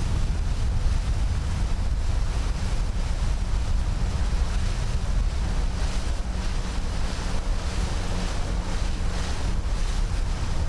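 Wind buffeting the microphone and water rushing past a small boat under way, with a heavy, steady low rumble.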